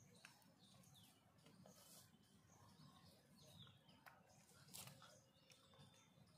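Near silence: faint outdoor ambience with a few faint, short falling bird chirps and a couple of soft clicks.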